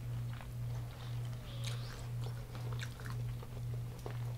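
Close-up chewing and biting of crunchy deep-fried food coated in Hot Cheetos, with short crackly crunches, over a loud steady low hum that swells and fades about twice a second.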